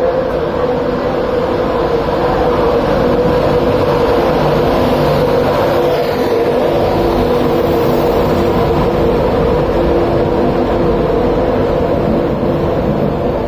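LNER InterCity 225 electric train of Mark 4 coaches running slowly into the platform alongside, giving a steady hum with several held tones.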